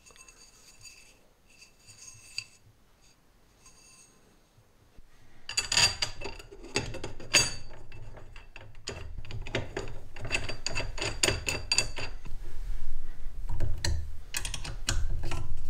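Aluminium extrusion frame parts and bolts of a 3D printer being handled: a few light ringing metal clinks at first, then from about five seconds in a busier run of clicks, clatters and knocks as the top extrusion is set onto the frame uprights.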